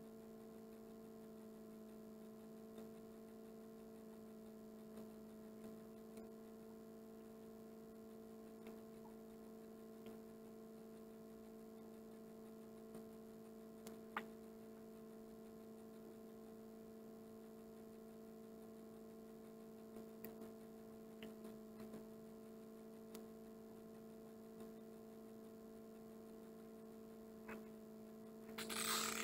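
Quiet room with a steady electrical hum and a few faint ticks. Near the end comes a brief, louder scuffing noise.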